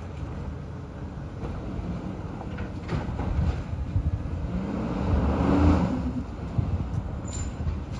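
Side-loading garbage truck's diesel engine running as the truck moves slowly, a low rumble that revs up with a rising note about five seconds in and then settles back, with a few faint knocks.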